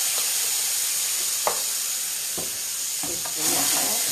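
Prawns and white wine sizzling in a hot frying pan as the wine boils off, a steady hiss. There are two sharp knocks in the middle, and near the end a wooden spoon stirring through the pan.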